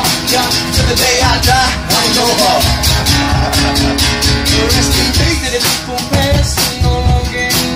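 Music with a steady beat and a singing voice.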